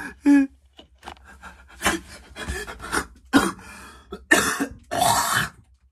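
A man coughing repeatedly: a series of harsh coughs, the loudest and longest two near the end.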